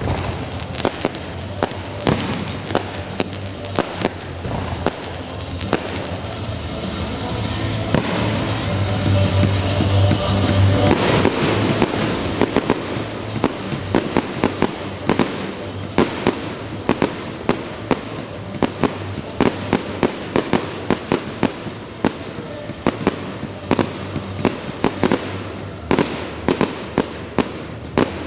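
Aerial fireworks display: a rapid, near-continuous run of sharp bangs from bursting shells, dozens of them, thickest about ten seconds in and again near the end. Epic-themed show music plays underneath the explosions.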